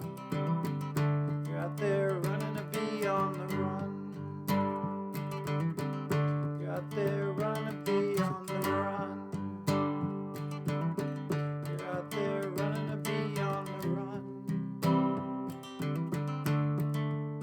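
Acoustic guitar strumming the instrumental ending of a folk song, with a steady rhythm and no vocals.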